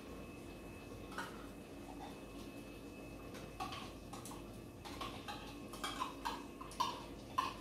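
A spoon scraping and clicking against a small container of tomato paste as the paste is scooped out into a multicooker bowl. The clicks come more often in the second half, ending with two sharper knocks near the end.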